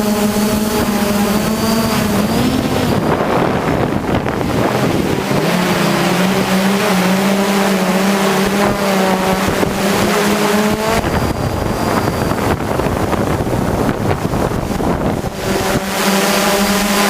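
Hexacopter's motors and propellers humming, the pitch wavering as the motors work against the wind, with strong wind rushing over the microphone. The hum drops out for a few seconds twice, leaving mostly wind noise.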